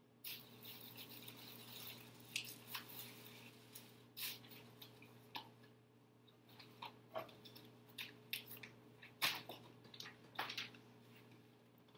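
Clear plastic bag crinkling and papers rustling as bills are pulled out of the bag and handled, in irregular crackles and rustles. A faint steady hum lies beneath.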